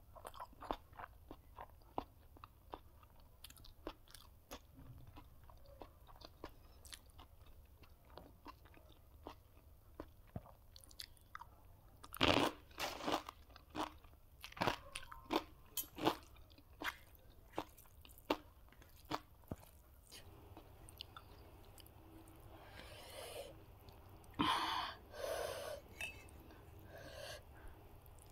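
Close-miked chewing and crunching of food, with many small sharp mouth clicks and a run of louder crunches about halfway through.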